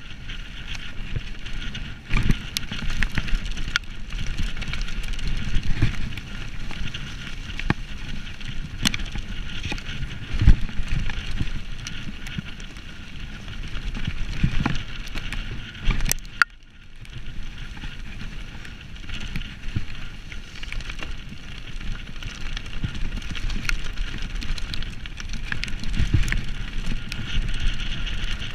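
Mountain bike riding fast over a muddy dirt trail: tyres rolling on dirt and wind on the microphone, with frequent clatters and knocks as the bike jolts over bumps.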